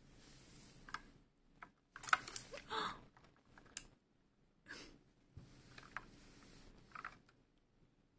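Computer keyboard keys clicking and rattling irregularly under a kitten's paws and body as it shifts on the keyboard, with soft rustling; the clicks bunch up about two to three seconds in and again near the end.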